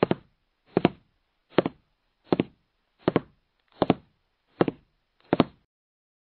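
Intro sound effect of eight evenly spaced double knocks, about one every three quarters of a second, each marking a letter tile popping into a title animation.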